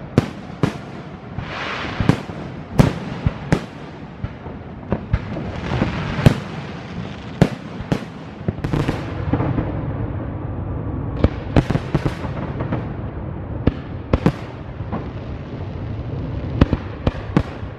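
Fireworks display: a rapid series of sharp bangs from shells bursting, some close together, with crackling hiss spreading out after several of them.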